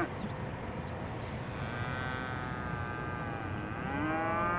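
Cattle mooing: a fainter, drawn-out moo in the middle, then a loud moo starting near the end that slides up in pitch as it begins.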